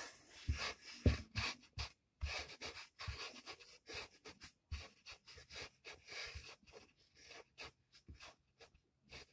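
Hands squishing and pressing crumbly kinetic sand mixed with putty, a faint, irregular crackling and scratching with a few soft thumps in the first couple of seconds.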